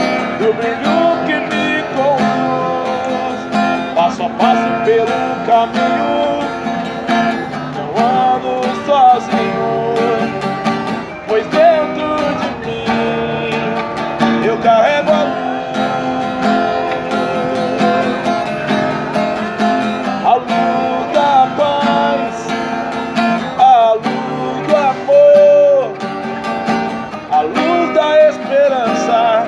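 Instrumental music: strummed acoustic guitar under a melody line that slides and bends between notes.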